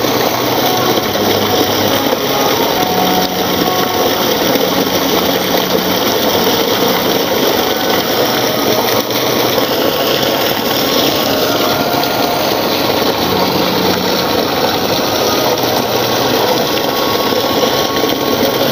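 Loud, steady machine noise running without a break.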